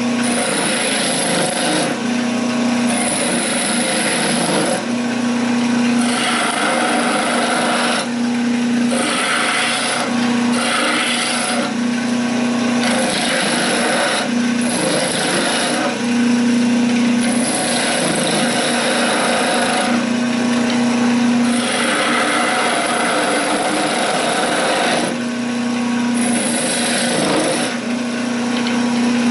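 Wood lathe running while a turning chisel cuts a spinning wooden spindle. The cut is a scraping, hissing shear that comes in repeated passes of a second or two and eases between them, over a steady low hum.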